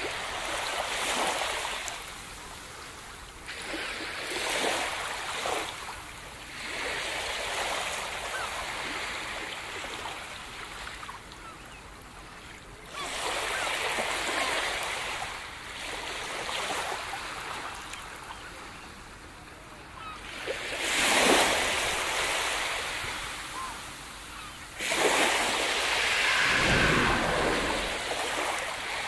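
Ocean surf: waves breaking and washing up a beach, swelling and fading every few seconds, with the biggest surges about two-thirds of the way through and near the end.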